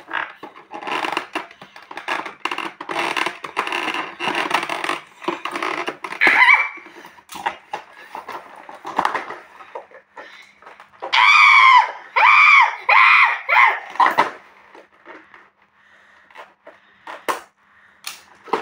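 A cardboard toy-blaster box being handled and opened: rustling, scraping and crackling of cardboard and packaging, with sharp clicks. Midway there is a run of four or five short, loud squeals.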